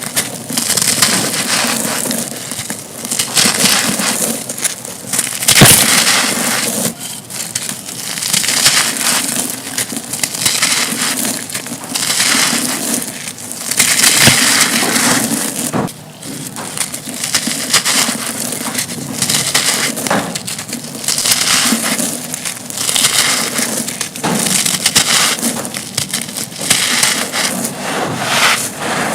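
Dry concrete chunks being crushed and crumbled, a continuous gritty crunching that swells and fades every second or two, with one sharp loud crack about five and a half seconds in.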